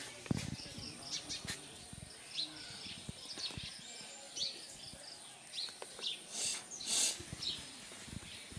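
Small birds chirping in the background, with soft taps and scuffs from goats' hooves. Two short hissing bursts come about two-thirds of the way through.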